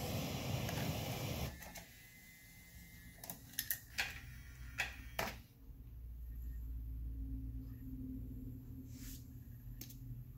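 Eclipse CD3100 car CD receiver taking in and reading a disc: a handful of sharp mechanical clicks from the loading mechanism, then a low steady hum as the disc spins while it reads. A hiss fills the first second and a half.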